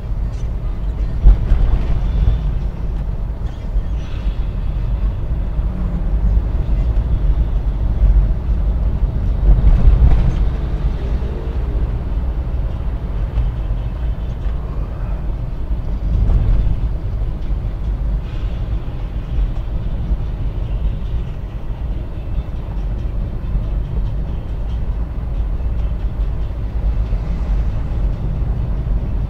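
Suzuki Carry Futura van driving, heard from inside the cabin: a steady heavy low rumble of engine and road noise. Two louder jolts, about a second in and again around ten seconds in.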